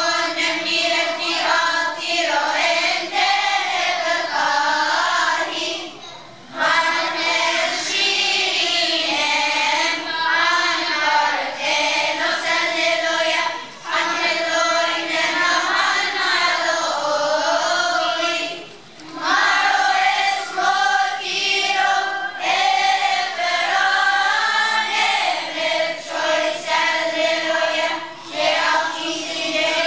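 Children's choir of boys and girls singing together, with short breaks between phrases.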